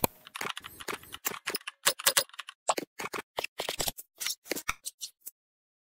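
Computer keyboard typing: a run of quick, uneven key clicks, about three to five a second, that stops about five seconds in.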